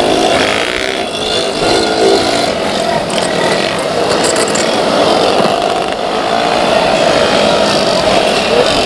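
Several 115 cc automatic scooter engines revving together at race speed, their overlapping pitches rising and falling as the bikes ride along the track.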